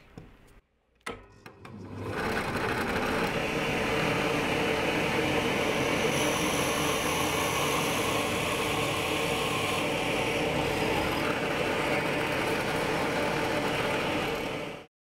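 Drill press running and boring holes into a wooden blank: a steady motor-and-cutting noise that starts about two seconds in and cuts off suddenly near the end. A few light knocks come before it.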